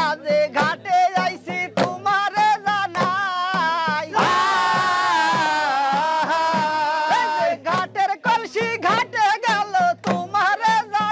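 Folk song: a voice singing a wavering melody over a quick, steady drum beat, with one long held note in the middle.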